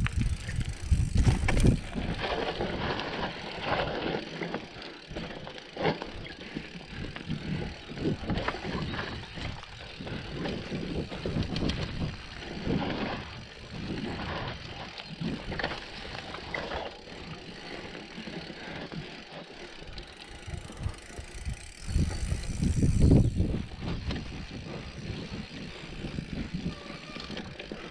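Mountain bike descending an off-road trail: tyre noise over the ground with irregular knocks and rattles from the bike. It is louder near the start and again about twenty-two seconds in.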